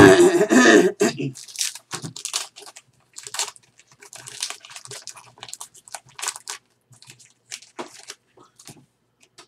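Baseball trading cards and pack wrapper being handled: a loud crinkle in the first second, then soft scattered rustles and slides as the cards are flipped through.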